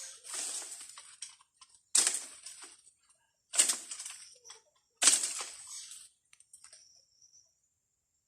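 Leaves and branches of a fruit tree rustling and crackling in four sharp bursts about a second and a half apart, as fruit is knocked down, each burst dying away quickly; it falls quiet about six seconds in.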